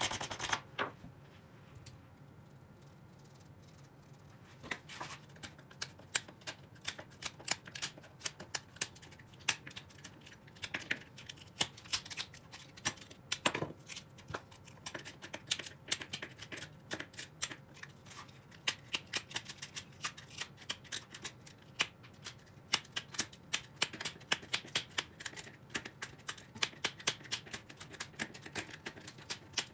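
A small blade scraping and picking at the edge of a sheet of sandpaper in many short, irregular scratchy strokes. The strokes are sparse for the first few seconds, then come thick and fast.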